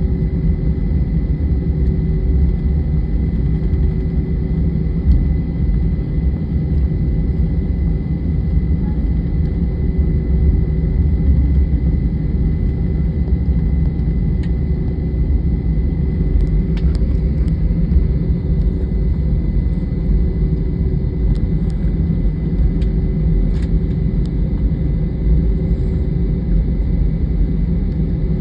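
Jet airliner engines and airflow heard inside the passenger cabin: a steady, heavy low rumble with a faint steady high whine over it.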